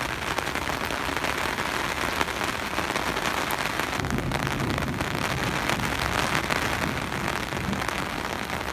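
Heavy rain falling hard, with drops striking a fabric patio umbrella overhead as a steady, dense hiss of many small ticks.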